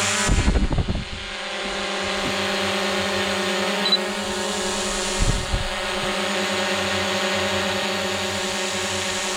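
ATV engine running at a steady speed, with a few low thumps in the first second and again about five seconds in.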